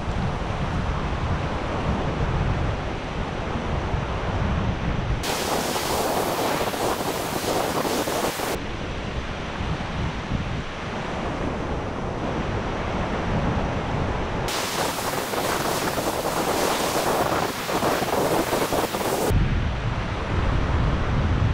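Waves breaking and washing up a sandy beach, with wind buffeting the microphone in a low rumble. Twice, for a few seconds each, the rumble gives way to a brighter hiss of surf.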